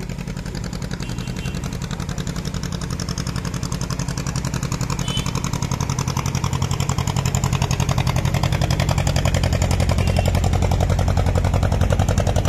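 Motorised wooden river boat's engine running at a steady rapid beat, growing louder as the boat comes close.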